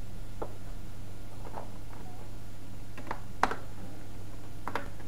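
A handful of light, sharp clicks at uneven intervals, the loudest about three and a half seconds in, over a steady low hum.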